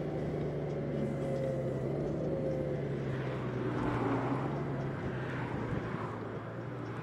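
Honda Gold Wing's flat-six engine running steadily at cruising speed under road and wind noise. An oncoming lorry passes with a swell of noise about four seconds in.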